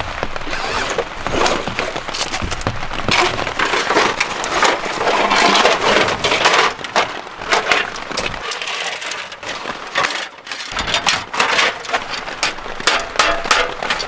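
Thin sheet-metal panels of a flat-pack folding wood stove clanking and rattling as they are unfolded and slotted together, with many sharp knocks and clinks over rustling handling noise.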